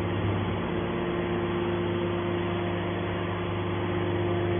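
Hydraulic scrap metal baler running steadily: a constant machine hum with a few fixed tones over a noise bed, unchanging throughout.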